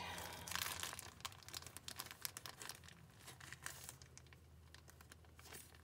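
Plastic bag crinkling and crackling as it is handled and sealed, louder in the first second or two and then fainter.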